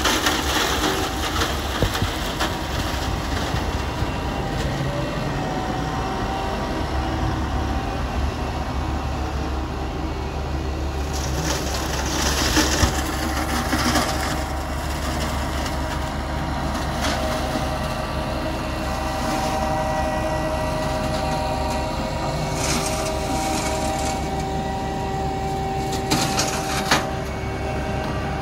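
Fendt 716 Vario tractor running steadily, with the whine of the McConnell hedge cutter's hydraulics and flail head. A few sharp cracks of wood and clatter come through, near the start and again twice later.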